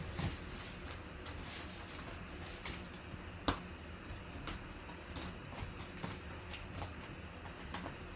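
Quiet room tone with a low steady hum and scattered faint clicks and taps, with one sharper click about three and a half seconds in.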